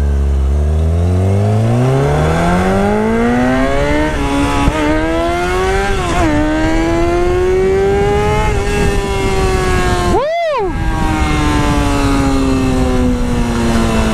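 Kawasaki Ninja sportbike accelerating away through the gears on a short Delkevic slip-on exhaust, with a deep, loud note. The pitch climbs and drops back at gear changes about four and six seconds in, rises again, jumps up and down sharply near ten seconds, then falls slowly as the throttle eases.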